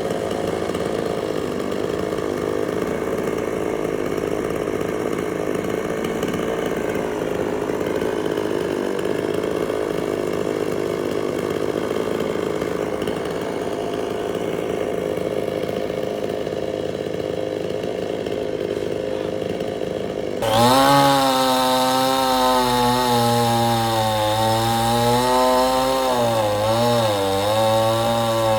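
Chainsaw running steadily, cutting wood. About two-thirds of the way through it suddenly gets louder and its engine pitch dips and rises repeatedly as it is revved and loaded in the cut.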